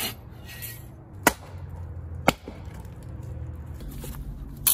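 A bow saw's last stroke through a log, then two sharp wooden knocks about a second apart as cut firewood is handled on the rock. A short scuffing rustle comes near the end, over a low steady rumble.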